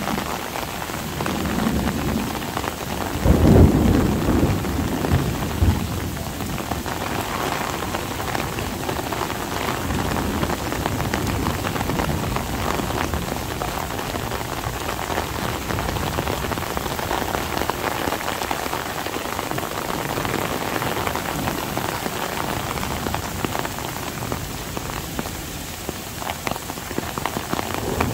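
Heavy rain falling steadily in a downpour, with a clap of thunder about three seconds in that rumbles low for a couple of seconds.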